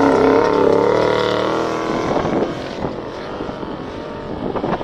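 Off-road 4x4's engine running at high revs, its pitch wavering, then dying away about two seconds in. After that come irregular rough crackling noises.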